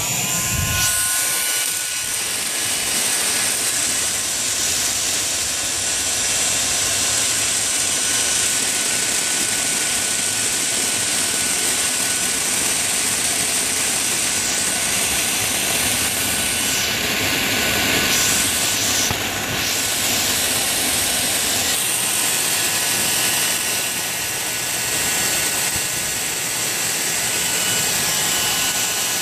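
Handheld hair dryer running steadily, its rush of air loud and close with a steady whine on top, blowing hot air onto a deflated mylar balloon to heat it. The hiss dips briefly a few times midway.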